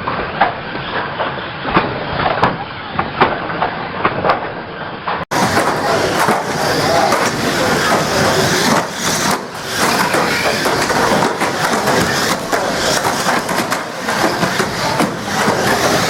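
Banger racing cars running on a track, a dense din of engines with many short knocks and bangs. The sound changes abruptly about five seconds in.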